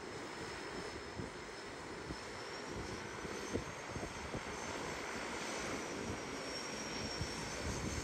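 Twin turboprop engines of a de Havilland Canada DHC-6 Twin Otter floatplane running at low power as it taxis on the water: a steady propeller drone with a thin, high whine over it.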